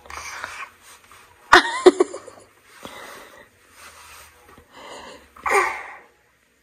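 A baby making short excited vocal sounds in several bursts, with two sharp knocks about a second and a half in.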